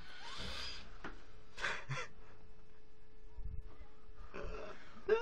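Stifled laughter and sharp breaths close to the microphone, turning into voiced laughter near the end, over a faint steady hum.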